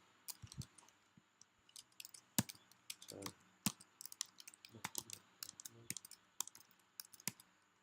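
Typing on a computer keyboard: quick, irregular keystrokes clicking as a file path is entered in a text editor.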